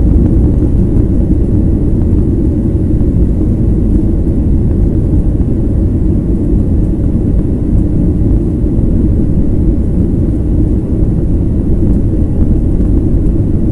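Steady low rumble of a Boeing 737 jet airliner in flight, engine and airflow noise heard inside the passenger cabin.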